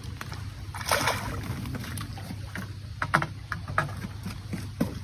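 A splash about a second in, then several sharp knocks, as a caught carp is handled at the water's edge. A steady low hum runs underneath.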